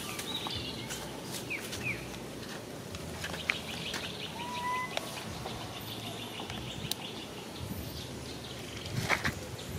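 Outdoor ambience with birds chirping: scattered short chirps and a couple of brief whistles, a few sharp clicks, and a short burst of rustling about nine seconds in.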